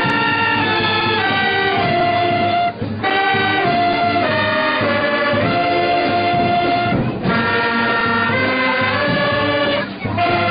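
Women's brass band with saxophones playing a melody in sustained notes, in phrases separated by short breaks for breath.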